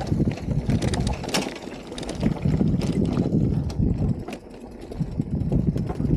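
Bicycle being ridden: a beach cruiser's tyres rolling and its frame rattling, with scattered sharp clicks and wind buffeting the microphone in a rising and falling low rumble.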